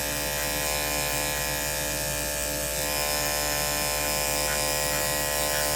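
Electric dog grooming clippers running with a steady buzz while trimming a puppy's paw pads.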